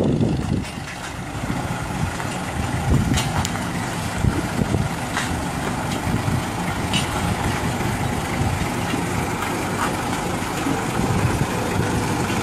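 Road roller's engine running steadily as the machine rolls slowly over interlocking concrete paving tiles, with a few light clicks.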